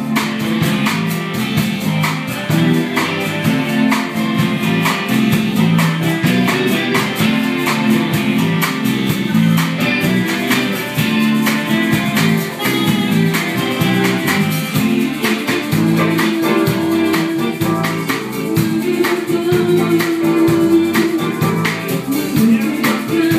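Live pop band playing a song: drums keeping a steady beat under electric bass guitar and keyboard, with a singer's voice over them.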